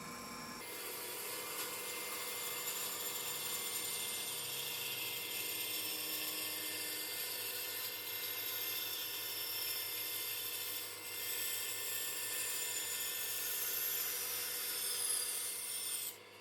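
A power woodworking tool running with a steady high whine while working plywood, with some falling tones in the second half; it cuts off just before the end.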